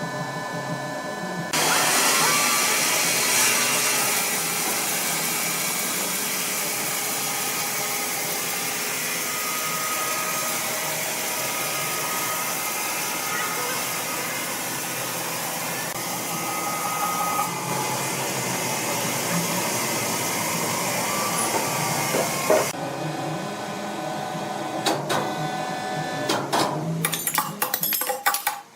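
Sawmill machinery running: a loud, steady rushing noise with faint whining tones comes in about a second and a half in and cuts off suddenly after about twenty-three seconds. Clattering and knocks come before and after it.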